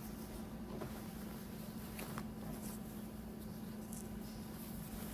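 Faint rustling and a few small clicks of a garment and its packaging being handled, over a steady low hum.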